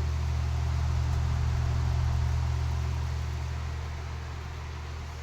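Sears and Roebuck 10-inch table fan, built by McGraw in the early 1970s, running on high speed while oscillating: a steady electric-motor hum under the rush of air from the blade. The sound swells and then slowly fades as the head sweeps across.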